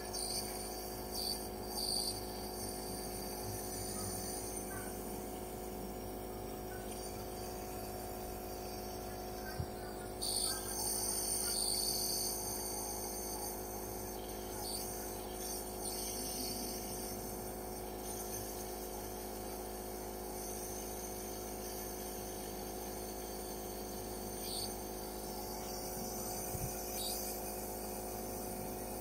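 Nebulizer compressor running steadily: a constant hum with a hiss of air and mist, and a brief louder hiss about ten seconds in.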